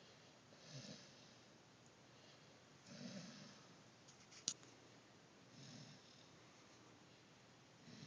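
A pet wheezing with a snore-like rasp on each breath, overfull after gorging on food: four slow breaths, about one every two and a half seconds. A single sharp click about halfway through.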